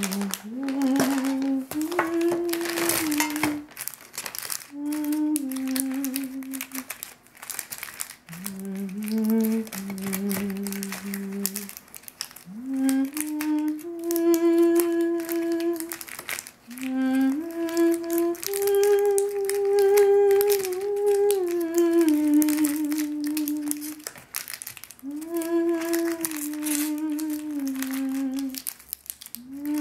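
A person humming a slow tune in long held notes, phrase after phrase, with crinkling of plastic packaging and small clicks of things being handled in between.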